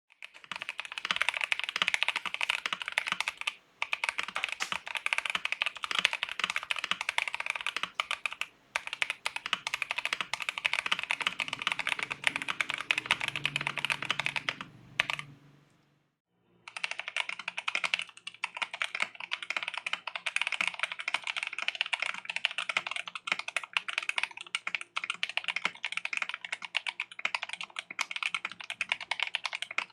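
Rapid, continuous typing on a mechanical keyboard, with a couple of brief pauses. It comes in two takes split by about a second of silence some 16 seconds in: two keycap sets being compared by their typing sound.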